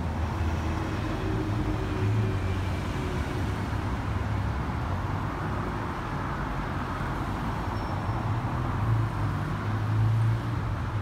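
Steady road traffic, with the low hum of passing vehicles' engines, growing louder near the end.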